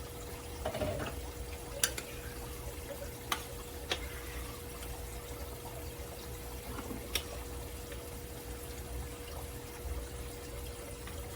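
A serving spoon scooping a thick, creamy chicken mixture, clinking sharply against the dishes four or five times, over a steady low hum.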